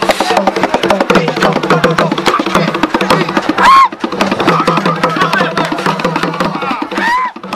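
Gule Wamkulu dance music: fast, dense drumming with voices singing beneath it. Twice a short high call rises and falls over the drums, once near the middle and once near the end.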